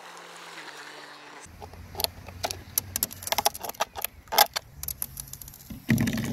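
Irregular clicks, taps and rattles of a 3D-printed plastic RC boat hull being handled and its hatch cover pulled off, with a brief louder rustle near the end.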